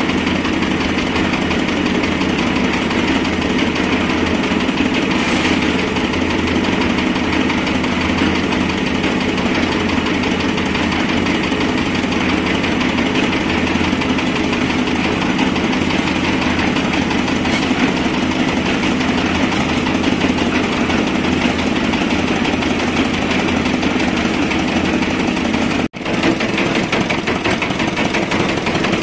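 Small stationary engine running steadily at a constant speed on a concrete hoist and mixer rig. The sound breaks off for an instant near the end.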